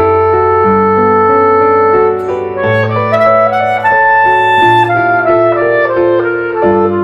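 Clarinet and piano playing a slow, gentle chamber piece. A long held note gives way, about two seconds in, to a stepping melody over piano bass notes.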